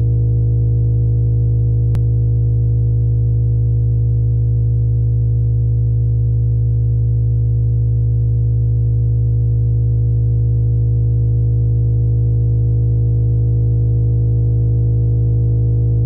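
Steady low synthesized drone of several pure tones held together, the deepest the loudest, presented as the 'space sound' of a moon. A faint click about two seconds in.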